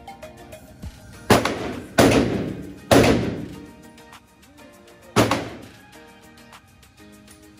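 Four gunshots in an indoor shooting range, the first three in quick succession and the fourth about two seconds later. Each is sharp and loud and rings out in a long echo off the range walls, over quiet background music.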